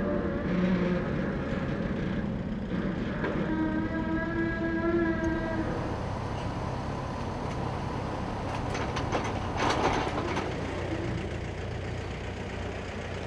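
Steady engine noise from vehicles or machinery. About three seconds in, a horn-like tone with several overtones is held for roughly two and a half seconds, and a few sharp clanks come near the ten-second mark.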